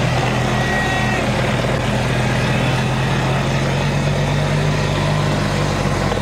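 Steady engine hum of a motor vehicle, with a low drone that changes little.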